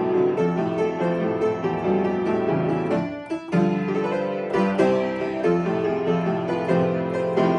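Upright piano being played: a melody over chords, with a brief break about three seconds in before the playing carries on.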